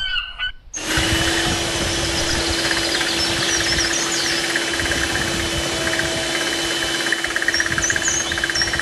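Electric hand mixer running at a steady speed, its beaters whirring through a runny egg and caramel mixture, with one steady motor hum. It switches on about a second in.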